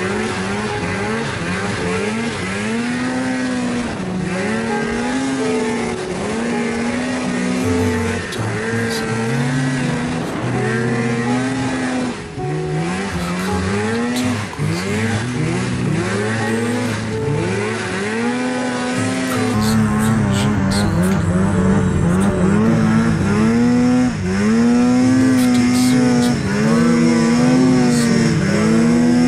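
Polaris Pro RMK 600 snowmobile's two-stroke twin engine revving up and down over and over while ploughing through deep snow, its pitch rising and falling every second or so.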